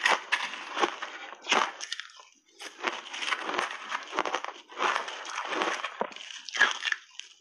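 Crushed ice crunching as it is chewed close to the microphone, in a quick series of crunches with a short lull about two seconds in.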